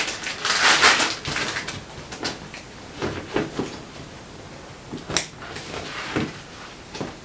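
Rustling and crinkling of a waterproof dry bag being handled, with scattered clicks and knocks as its two straps are fitted, and one sharp snap about five seconds in.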